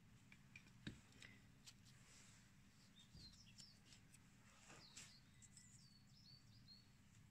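Near silence: low room hum with a few soft clicks and taps as a hand handles things on the lab bench, the clearest about a second in, and some faint short high chirps in the middle.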